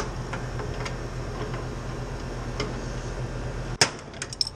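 A few light clicks and ticks over a steady low hum. About four seconds in, a sharp click comes and the hum cuts off, followed by a quick run of small clicks.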